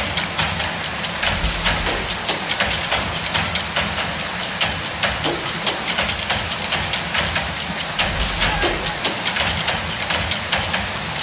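River water pouring over a low weir: a steady rushing and splashing.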